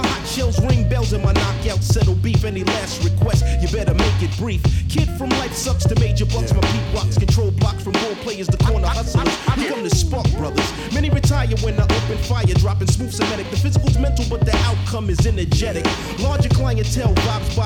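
Background hip hop music: a rapped vocal over a steady drum beat and heavy bass.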